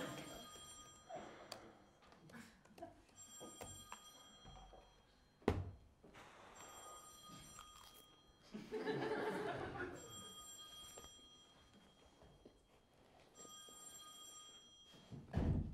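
A phone ringtone ringing in about five separate bursts of high electronic tone, with gaps between them. There is a single thunk about five seconds in.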